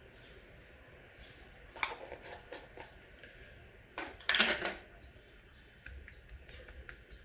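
Kitchen handling sounds from hands working paratha dough on a wooden rolling board: a few quick light taps about two seconds in, then a louder short scraping rustle about four seconds in as the paratha is lifted and folded.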